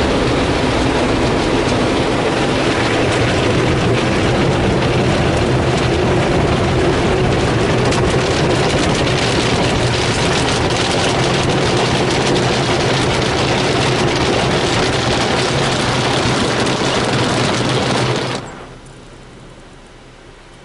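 Ryko SoftGloss XS 2 car wash running, heard from inside the car: cloth brushes spinning and slapping against the car with water spraying, a loud steady wash noise over a low hum. It cuts off sharply about 18 seconds in.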